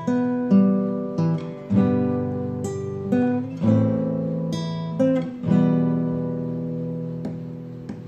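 Acoustic guitar music: chords strummed and left to ring, a new chord struck every second or so, fading a little toward the end.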